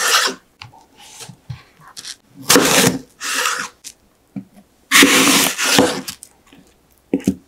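Kitchen knife cutting through a whole raw apple on a wooden cutting board: two crisp crunching cuts, about two and a half seconds and five seconds in. Between them come small knocks and rustles of the apple pieces and the knife on the board.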